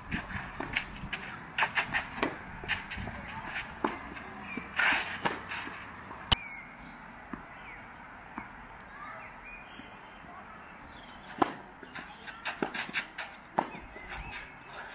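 Tennis play on a clay court: irregular racket hits, ball bounces and footsteps scuffing on the clay. The loudest is one sharp hit about six seconds in.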